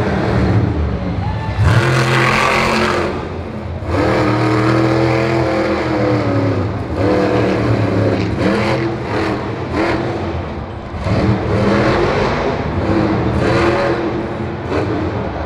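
Monster truck's supercharged V8 engine revving hard, rising and falling in pitch several times as the truck drives the dirt course and jumps.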